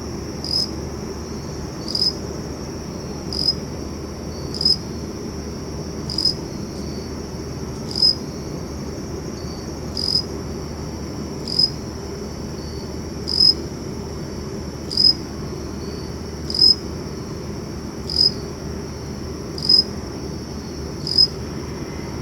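Crickets chirping at night: a steady high insect trill, with one louder chirp repeating about every one and a half seconds.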